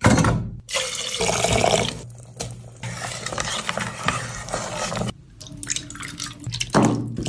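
Water running and splashing in a sink, coming and going unevenly with short breaks.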